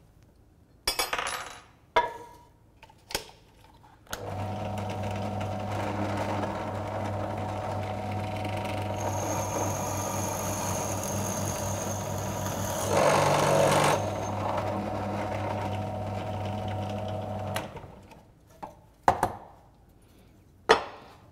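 Benchtop drill press motor started up and running steadily for about thirteen seconds while its bit bores into a block of chipboard. The cutting grows louder for about a second two-thirds of the way through. A few sharp knocks and clicks of the bit and chuck being handled come before and after.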